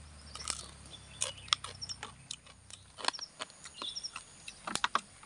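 Roasted freshwater crabs being bitten and broken apart by hand: a string of sharp, irregular cracks and crunches of charred shell, the loudest few near the end. Small birds chirp faintly in the background.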